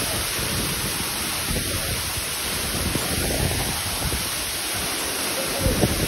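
Steady rushing of the Erin Ijesha (Olumirin) waterfall crashing onto the rocks at its foot.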